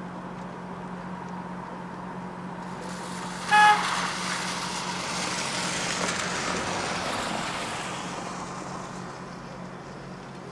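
A short vehicle horn toot about three and a half seconds in, the loudest sound, followed by a passing vehicle's road noise that swells and then fades, over a steady low hum.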